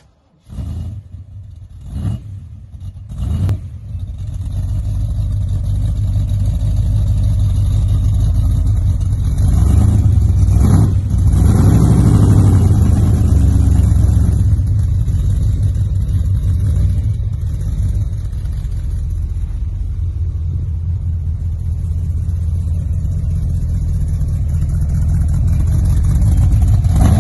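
De Tomaso Pantera's Ford V8 firing up and blipped a few times in the first seconds, then running at a steady deep rumble. The sound rises for a few seconds about ten seconds in as the car pulls away slowly.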